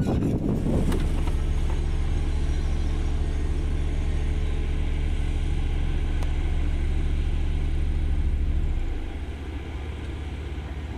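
Volvo SD110 single-drum soil compactor running with a steady low drone, its vibratory drum working the dirt. About nine seconds in the drone drops away, leaving a quieter rumble.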